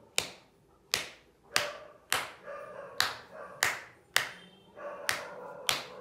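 Open palm slapping the sole of a bare foot in repeated marma-point tapping: about ten sharp slaps at an uneven pace, roughly one every half second to second.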